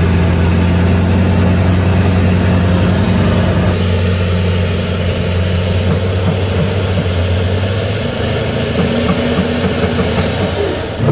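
Twin Duramax turbo-diesel engines of a giant monster pickup working under load on a steep climb, with a steady low drone. A high turbo whistle rises slowly over several seconds and falls away near the end.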